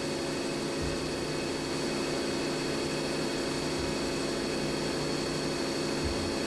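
CNC milling machine cutting an aluminum coaster with an end mill: a steady machine hum with a thin, constant high whine from the spindle and cut.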